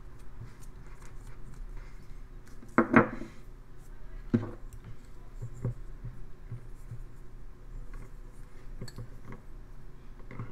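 Quiet scraping of a small carving knife paring basswood, then a pencil scratching lines onto the carved wood. A few louder knocks stand out, two close together about three seconds in and one more about a second and a half later.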